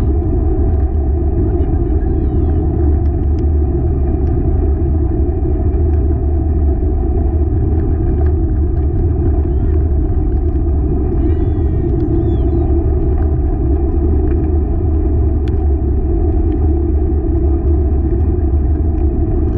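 Dog-drawn open rig rolling along the trail at speed: a loud, steady rumble of the wheels on the ground, with a few brief high squeaks about halfway through.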